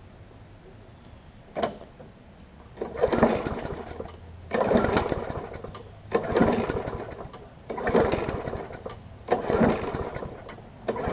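Briggs & Stratton Classic push-mower engine being pull-started: the recoil starter rope yanked again and again, about one pull every second and a half, the engine turning over with each pull but not firing. The owner thinks there is water in the fuel.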